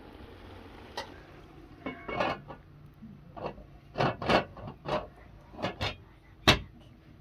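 Metal cookware being handled: a lid set onto a large metal cooking pot and dishes moved beside it, giving a string of short clanks and scrapes, with the loudest knock near the end.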